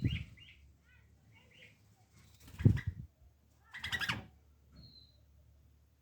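A pet bulbul giving short soft chirps, with two loud sudden bursts of wing flapping about two and a half and four seconds in, and a brief high note near the end.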